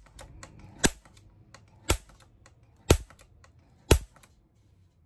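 Automatic center punch snapping against sheet metal four times, about once a second, as its spring-loaded hammer releases. Each strike makes a small indentation so the drill bit will not walk on the metal.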